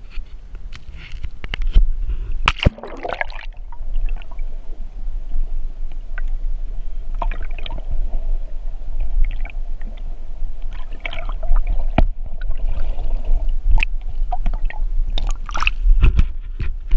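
Water sloshing and gurgling around a GoPro's waterproof housing as it is plunged under the sea surface and lifted back out, over a constant low rumble with scattered knocks and a steady hum while it is under water.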